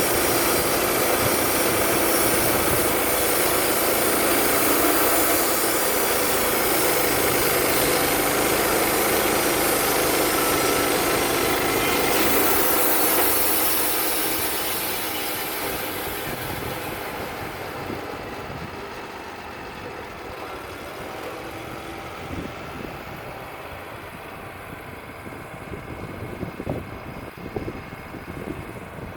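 Wood-Mizer LT35 bandsaw mill running under load as its band blade cuts through a poplar log. About halfway through, the sound fades over several seconds to lower, steadier running, with a few irregular crackles near the end.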